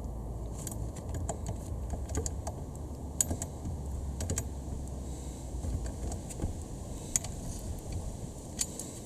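Irregular light clicks and clinks of hand tools and metal parts being handled while working on a car's shifter linkage, over a low steady rumble.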